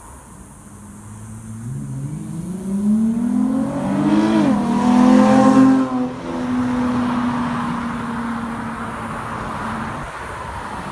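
A car accelerating past: its engine pitch climbs, drops once at a gear change, and it is loudest about halfway through, then holds a steady note as it drives on and fades.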